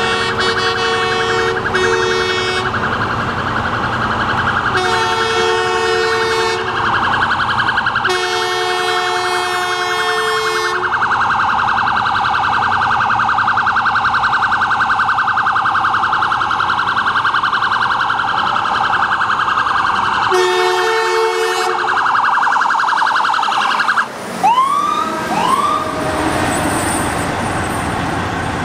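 Ambulance electronic siren sounding continuously, with several blasts of train horns, a multi-note air horn chord, over it: two short blasts at the start, then longer held blasts of two to three seconds. Near the end the siren changes to a few short rising chirps.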